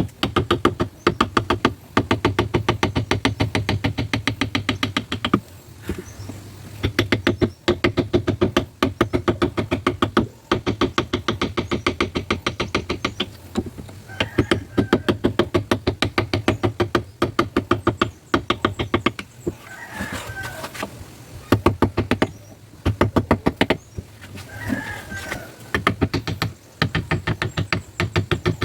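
Carving chisel being struck with rapid, even mallet taps, several a second, as it cuts into ironwood (sudyang), in runs of a few seconds with short pauses.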